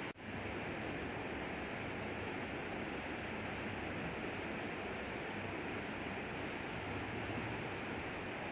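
Steady rushing noise of shallow river water running over stones, with a brief dropout just after the start.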